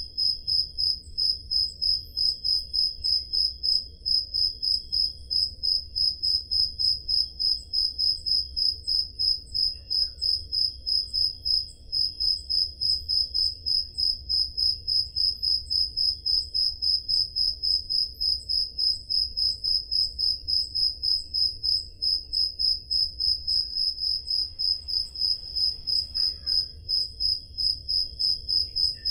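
Crickets chirping on a summer night: one loud, high chirp repeating evenly about three times a second, with a fainter, lower cricket trill behind it.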